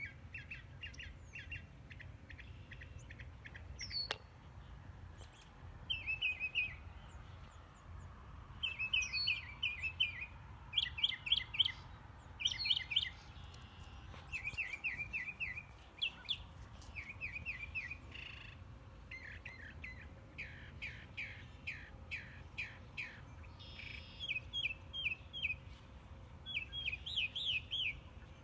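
Songbirds singing: short phrases of rapid, trilled chirps, repeated every second or two, over a faint low outdoor rumble.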